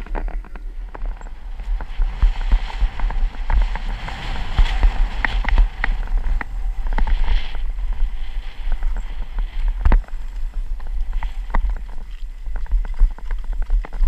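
Downhill mountain bike clattering over a rough trail, with many sharp knocks and rattles, under a steady wind rumble on the helmet-mounted microphone.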